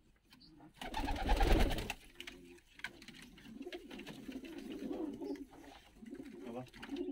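Domestic pigeons of Georgian fighting breeds cooing in a loft, low wavering coos repeating over and over. About a second in there is a brief loud scuffling noise.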